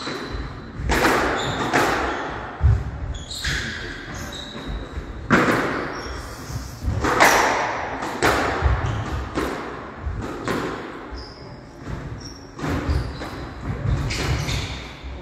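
Squash rally: the ball cracking off racquets and the court walls roughly every one to two seconds, each strike ringing briefly in the hall, with short high squeaks of shoes on the wooden court floor between strikes.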